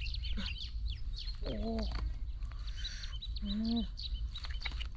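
Ducks quacking, two short calls about two seconds apart, among many quick high chirps from small birds, over a steady low rumble.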